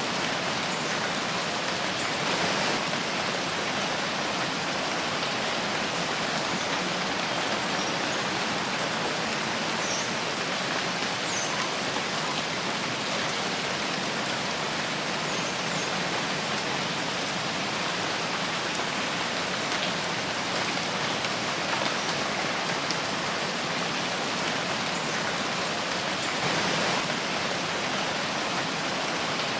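Steady rain falling in a forest, an even hiss of drops on leaves and the ground, with a few faint individual drip ticks.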